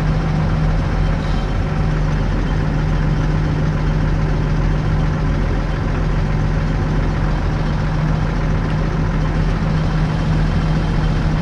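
Case IH Puma CVX tractor engine running steadily, with no change in speed, while working the hydraulic spool that unfolds the mounted weeder.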